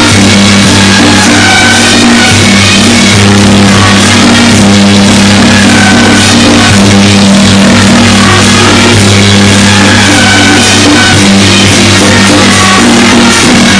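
Loud music with drums: steady held low notes under a higher melody that moves from note to note.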